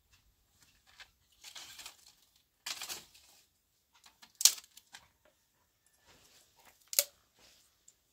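Intermittent scraping or rustling, then two sharp knocks about two and a half seconds apart, the first the louder.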